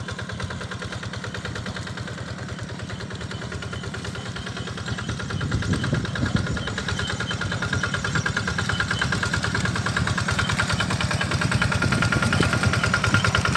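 A small engine running with an even rapid beat and a steady whine, getting gradually louder.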